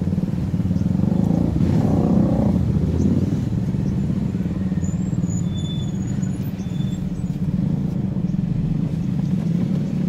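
Car driving along a rough, potholed village road: steady engine and road rumble, which swells louder for a moment about two seconds in.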